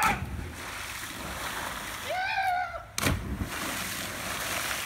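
A person jumping from a diving tower hits the pool with a loud splash, followed by the wash of churning water. A short shout comes about two seconds in, and a second heavy splash about three seconds in.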